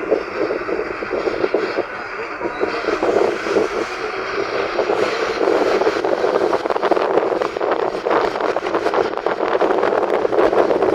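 Darjeeling toy train on its narrow-gauge line, running with a continuous rattling clatter that grows somewhat louder.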